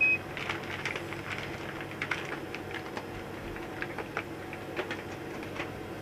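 Plastic bag crinkling and rustling in irregular bursts as it is handled and shaken, over the steady hum of the space station's cabin ventilation. A short high beep sounds right at the start.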